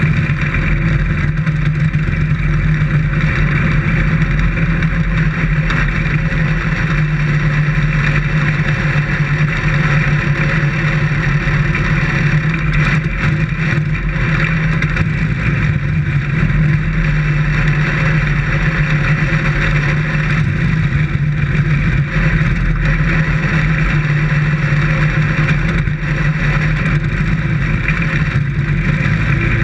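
Dirt-track race car's engine running hard at a steady high pitch, heard from inside the cockpit, with only slight rises and dips in revs.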